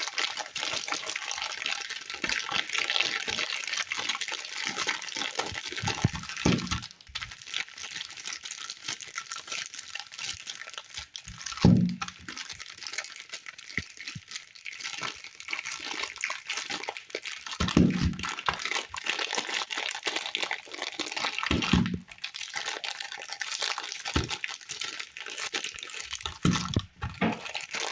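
Soap packaging being unwrapped and handled: a steady crinkling of wrapper, with a handful of soft low thuds spread through it.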